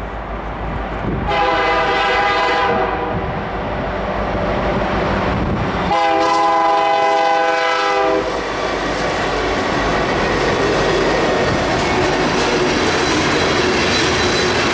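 Freight train led by a CN SD75I diesel locomotive sounding its air horn twice, a blast about a second in and a second, louder blast about six seconds in lasting about two seconds. Then the locomotive and tank cars roll past with a steady rumble and wheel clatter.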